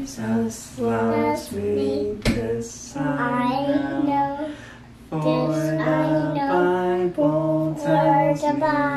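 A woman singing a slow melody of held notes, in phrases. A single sharp click about two seconds in.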